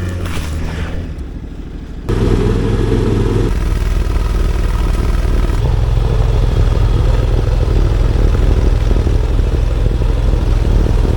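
Snowblower engine running hard under load in heavy snow. About two seconds in the sound jumps abruptly louder and rougher, then carries on as a steady, loud rumble.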